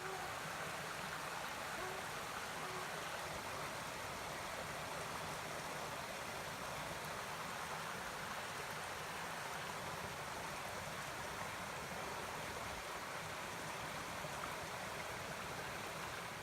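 A little creek flowing: a steady, even rush of running water.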